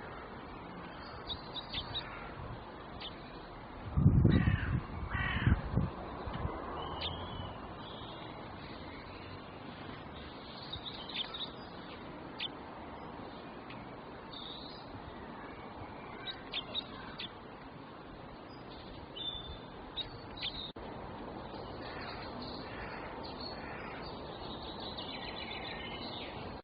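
Birds calling: short high chirps scattered throughout over a steady hiss, with a louder cluster of calls about four to six seconds in.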